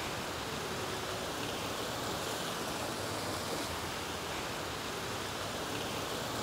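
Mountain stream rushing as white water through a narrow rock chute: a steady, even rush of water.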